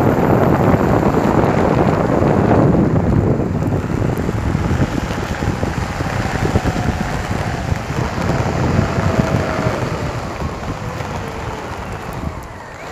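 Wind buffeting the microphone over the rolling noise of an Enertion Raptor 2 dual hub-motor electric skateboard at speed on a track surface. The noise slowly eases as the board coasts and then slows under regenerative braking near the end, and a faint whine falls in pitch through the middle.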